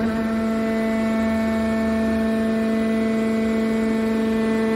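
Hydraulic power unit of a scrap car baler press running: the electric motor and hydraulic pump give a steady hum with a strong, even tone.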